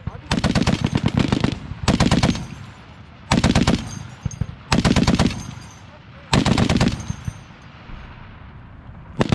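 M2 .50-calibre heavy machine gun firing five short bursts of rapid shots, the first the longest at about a second, the others about half a second each and spaced roughly a second and a half apart; another burst begins at the very end.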